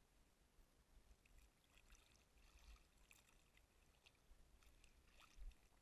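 Very quiet water sounds: faint small splashes and trickling ticks of water at a boat's side, over a low rumble.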